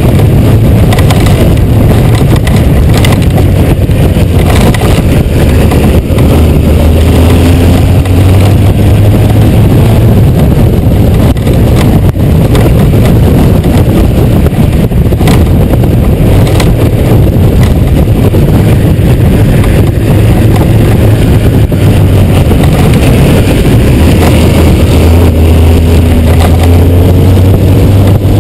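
Honda GoldWing 1500's flat-six engine running under way, with heavy wind noise on the onboard camera microphone. The engine's pitch climbs twice, about eight seconds in and again near the end.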